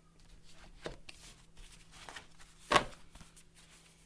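Letter cards being handled and rustled while a letter board is set up, with a small click about a second in and a single sharp knock about three quarters of the way through.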